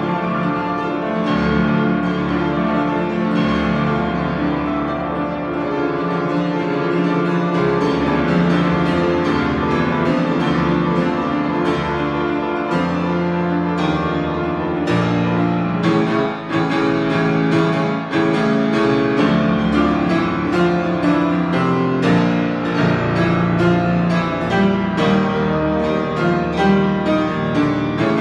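A 93-year-old grand piano, freshly tuned, played with full sustained chords. About halfway through, strong low bass notes come in and the playing turns busier, with quicker notes.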